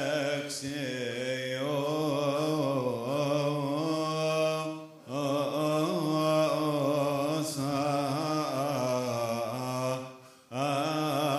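Coptic Orthodox vespers chant sung by men: long held notes that waver and turn in pitch, with a breath break about five seconds in and another near the end.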